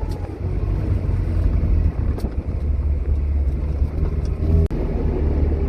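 A car driving along a road, heard from inside the cabin: a steady low engine and tyre rumble.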